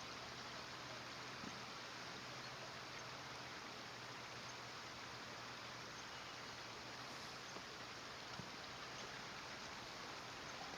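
Steady even background hiss with a low hum beneath it, broken only by two faint ticks, one about a second and a half in and one a little after eight seconds.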